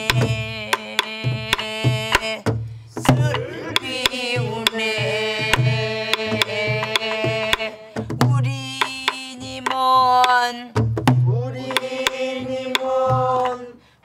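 Korean sinminyo folk song sung in long held notes with a wavering vibrato, phrase by phrase, over a buk barrel drum keeping the dongsalpuri rhythm: deep hand strokes on the drumhead and sharp stick clicks on the wooden rim.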